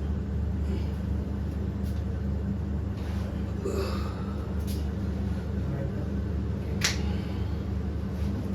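A single sharp crack of a spinal joint popping under a chiropractic manipulation, about seven seconds in, over a steady low background hum, with a couple of faint ticks a few seconds earlier.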